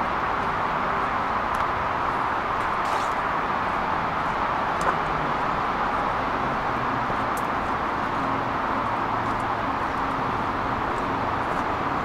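Steady hum of road traffic, even and unbroken, with a few faint ticks scattered through it.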